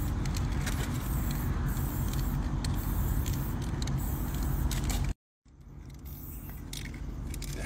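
Aerosol spray paint can hissing in short bursts over a steady low outdoor rumble; the sound drops out briefly about five seconds in and returns quieter.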